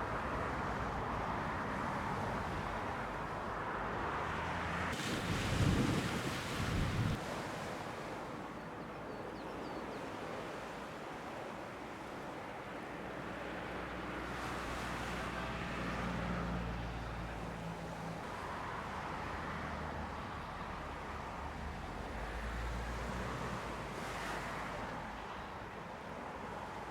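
Sea waves washing on the beach in a steady, swelling hiss, with wind buffeting the microphone in a loud gust about five seconds in. A low engine hum comes and goes midway through.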